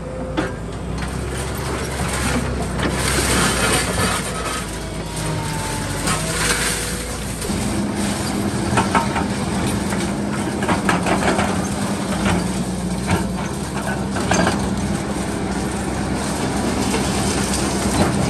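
Heavy excavators at demolition work: diesel engine running under load with knocks, crunches and scraping of broken concrete rubble. For the first several seconds a hydraulic demolition shear bites into concrete; from about halfway a Liebherr crawler excavator's engine holds a steady pitch as its bucket digs and scrapes through the rubble.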